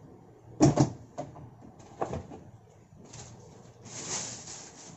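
Clear plastic packaging bags being handled and rustled, with a couple of sharp knocks about a second in and another about two seconds in, as parts are picked up and set down.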